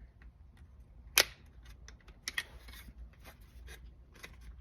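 Sharp snap of a plastic retaining clip popping free as the shifter boot is pressed off its plastic trim piece, about a second in, followed by a few fainter plastic clicks.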